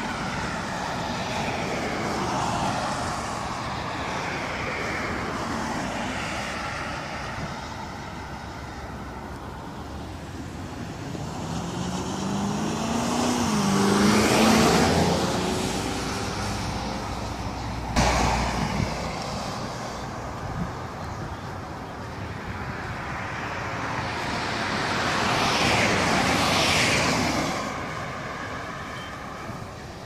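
Road traffic going by: a steady background of vehicle noise, with one vehicle passing close about halfway, its engine pitch rising and falling, a sharp click soon after, and another vehicle passing near the end.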